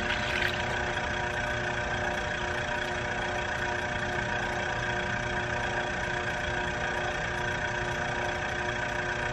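Eco Rinse machine's pump motor running steadily, a constant hum with a fixed pitch.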